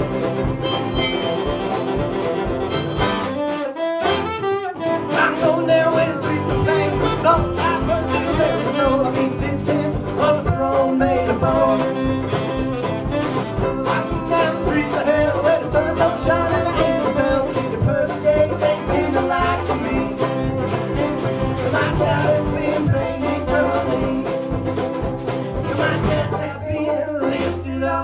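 Background music: acoustic string-band music with guitar and fiddle in a country or bluegrass style.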